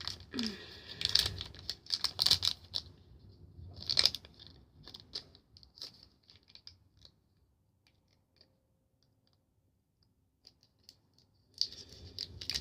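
Foil toy blind bag crinkling and rustling in the hands as it is being torn at; the bag is hard to open. The handling dies down to a few small ticks, goes almost silent for a few seconds, then starts again near the end.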